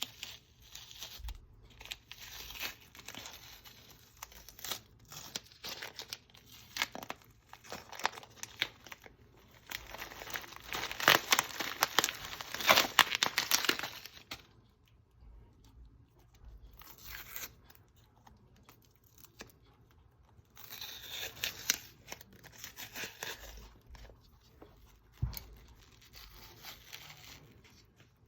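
Tape being peeled off a freshly painted leather sneaker, in irregular runs of tearing, loudest from about ten to fourteen seconds in, with another run a little past twenty seconds.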